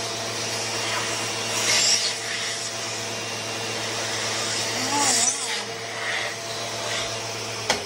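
Vacuum cleaner running with a steady motor hum and rushing suction noise, with brief louder rushes as it draws in debris. A sharp click near the end, after which the motor hum stops.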